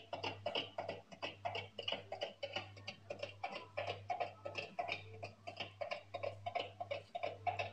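Music with a quick, even beat, and a steady low hum beneath it.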